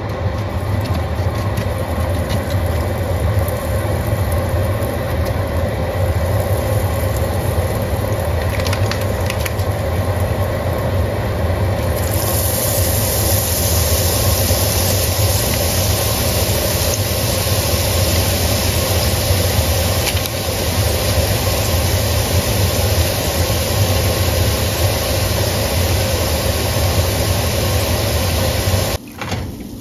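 Hot vegetable oil sizzling steadily as drops of thin besan batter fall in and fry into tiny mihidana pearls, with a steady low hum underneath. The sizzle turns brighter and hissier about twelve seconds in and cuts off shortly before the end.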